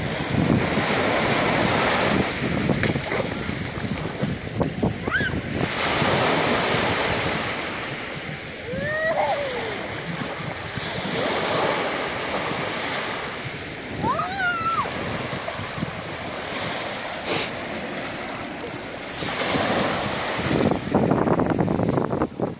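Small sea waves breaking on the shore and washing up the beach, the surf swelling and fading every few seconds.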